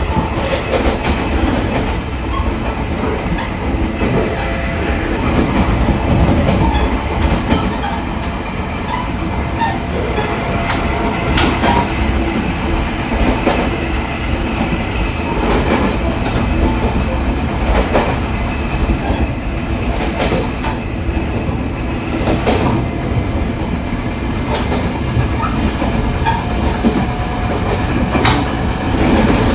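Steel wheels of an E500-hauled push-pull express running on the rails at a steady cruise of about 90 km/h, with repeated knocks over the continuous rumble. The wheels are out of round, which gives a flat-wheel pounding.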